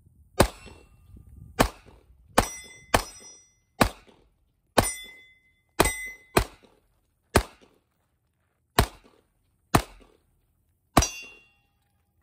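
Taurus compact semi-automatic pistol fired twelve times at an uneven pace, roughly one shot a second. Several of the shots are followed by a short high ringing ping, like hits on steel targets.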